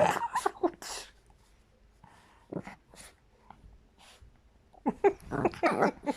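Chihuahua squeaking in short bursts: a cluster at the start, two brief ones in the middle, and another dense cluster from about five seconds in.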